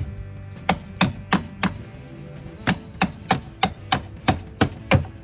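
Hammer blows on a tool held against the metal friction hinge of an RV entry door: sharp metallic strikes about three a second, four, then a pause of about a second near the middle, then eight more.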